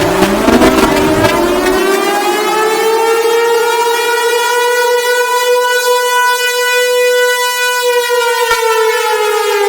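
Civil defense siren wailing: its pitch slowly climbs over about five seconds, holds at the top for a couple of seconds, then starts to wind down near the end. During the first second the tail of a falling wail overlaps the new rise.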